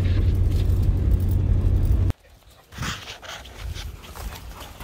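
4x4 engine and cabin rumble, steady and low, while the vehicle crawls up a steep dirt track in low range. It cuts off abruptly about two seconds in. After that come quieter, scattered rustles and footfalls of pig dogs moving about.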